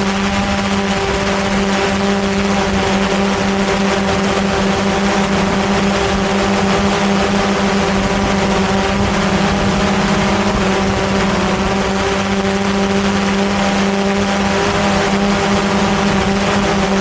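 Quadcopter drone's motors and propellers buzzing in flight: a loud, steady hum with a higher whine above it and a hiss of rushing air.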